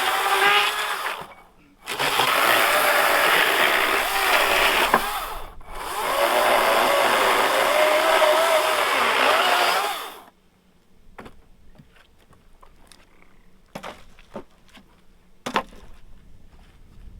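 Wild Badger Power 40V cordless electric chainsaw cutting through sawmill slabs in three runs with two brief pauses, its motor pitch dipping and rising under load; it stops about ten seconds in, followed by scattered light knocks.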